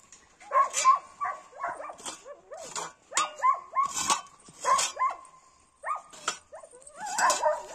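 Dogs whining and yipping over and over, short calls that slide up and down in pitch with brief pauses between them.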